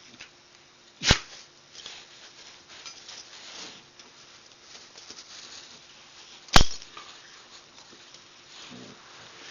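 A whippet sneezing twice: two short, sharp bursts about five and a half seconds apart, the second one louder, with soft rustling noises between them.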